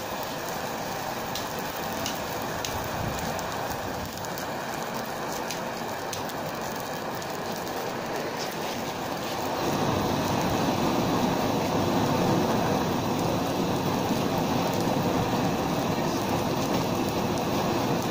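Butane torch flame hissing steadily on a burning plastic bottle, with scattered faint crackles. About ten seconds in a second torch joins and the hiss grows louder and fuller.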